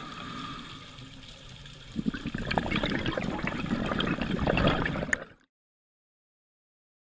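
Underwater sound of a diver's scuba breathing, heard through a camera's waterproof housing. A quieter steady hiss runs for about two seconds, then a louder rush of crackling, gurgling exhaust bubbles follows. It cuts off abruptly a little after five seconds in.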